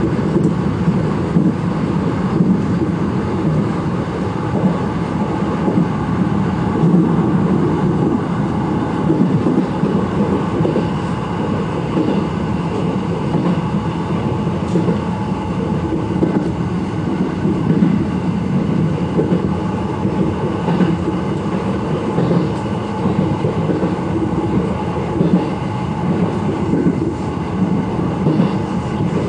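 JR Takarazuka Line local electric train running steadily, heard from the front of the train, with wheels clicking over rail joints.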